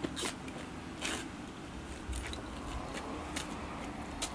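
Scattered light clicks and scrapes of a rubber orifice being pried out of an aluminum spray-nozzle tip by hand.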